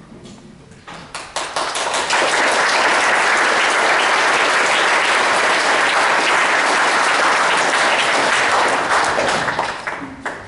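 Audience applauding: a few scattered claps about a second in swell into dense, steady applause, which thins out near the end.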